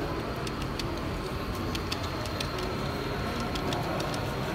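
Steady exhibition-hall background noise with a low murmur, broken by a scattered series of light, high clicks.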